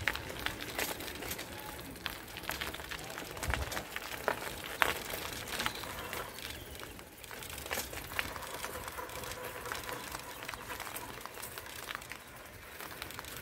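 Footsteps outdoors with rustling and irregular small clicks and crackles, as of someone walking along a lakeshore path.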